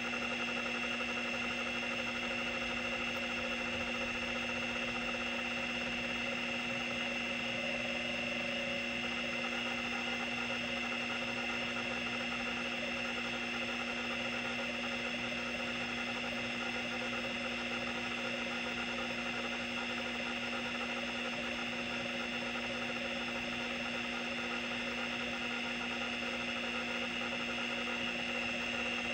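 Opened Seagate ST-212 MFM hard drive running a seek test: the spindle motor gives a steady high whine while the head actuator steps the arms back and forth continuously. The heads are bent clear of the damaged platter, so there is no scraping.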